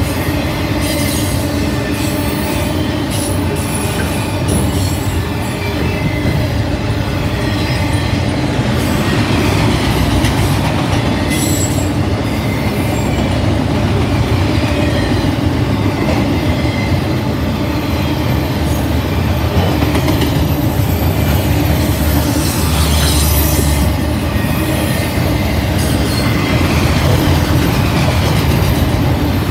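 Freight train of autorack cars rolling past: a loud, steady rumble of steel wheels on rail, with thin high wheel squeal over it.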